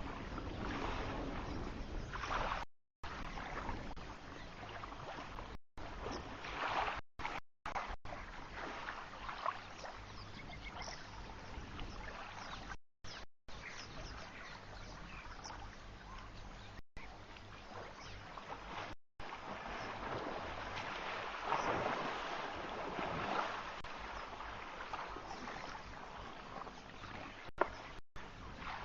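Water splashing and sloshing as young elephants play in a waterhole, coming in irregular swells. The audio drops out for a split second several times.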